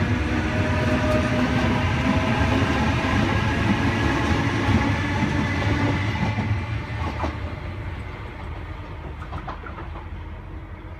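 Eight-car OSCAR H-set double-deck electric train pulling away from the platform. It runs with a hum of several steady tones over a rumble, then fades as it leaves after about six seconds, with a few clicks of wheels over rail joints near the end.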